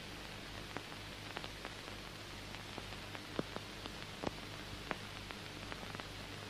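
Steady hiss and low hum of an old film soundtrack, dotted with irregular crackles and pops, the loudest a little past the middle.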